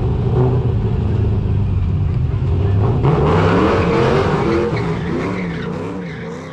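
Car engine running and revving up and down, with a broad noisy rush building about three seconds in, then fading out near the end.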